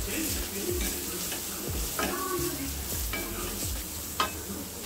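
Wooden spatula stirring and scraping a dry mix of onion, grated carrot and coconut around a stainless steel kadai, over a light sizzle of frying. One sharp tap near the end.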